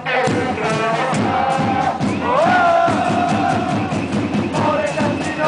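A group of football supporters chanting in unison, with a bass drum beating time under the voices.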